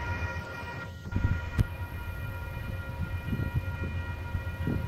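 Level-crossing warning bell ringing steadily as a multi-note tone over a low rumble. There is one sharp knock about a second and a half in.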